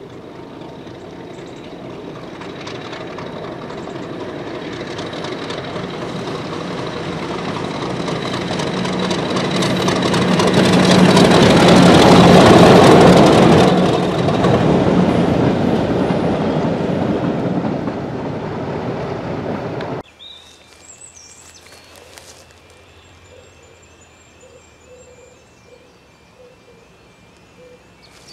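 A convoy of English Electric Class 50 and Class 20 diesel locomotives approaches and passes close by. The engine noise grows steadily, is loudest about twelve seconds in as the locomotives pass, then fades. About twenty seconds in the sound cuts suddenly to a quiet outdoor background with faint high chirps.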